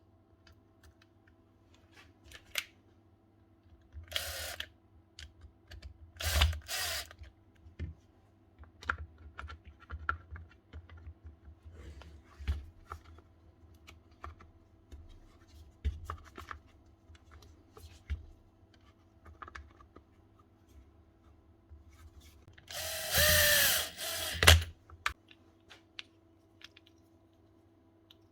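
Small clicks and handling of tool parts, with short bursts of a power drill motor: a brief one about four seconds in, two close together around six seconds, and a louder run of about two seconds near the end whose pitch bends as it spins up and down.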